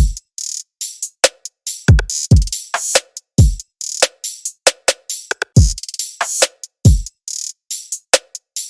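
Electronic drum-machine beat looping: deep kick drums whose pitch drops after each hit, with sharp snare or clap hits and hi-hats in a repeating pattern.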